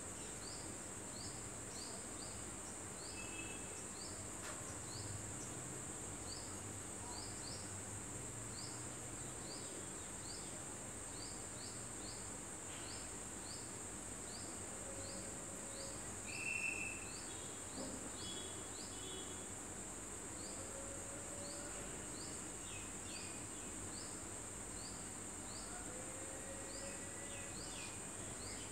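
Outdoor nature ambience: a steady high insect drone like crickets, with a string of short chirps repeating about once or twice a second. About two-thirds of the way through a brief, louder bird call stands out, and a few soft, low whistled notes sound now and then.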